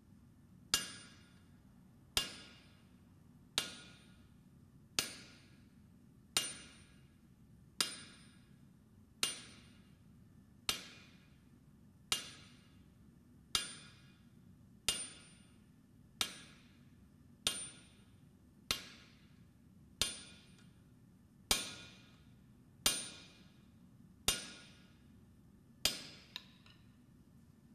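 A blacksmith's hammer strikes steel on an anvil in slow, even forging blows, about one every second and a half, each with a short metallic ring. There are about nineteen blows, with a lighter tap just after the last.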